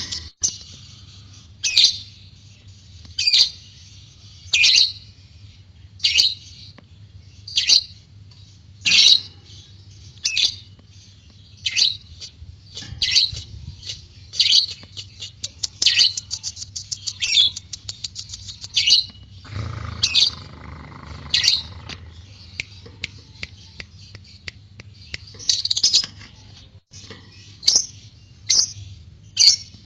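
Lovebird (white-beaked variety) calling: sharp high-pitched shrieks repeated about every second and a half, with a quick run of rapid notes about two-thirds of the way through, over a steady low hum.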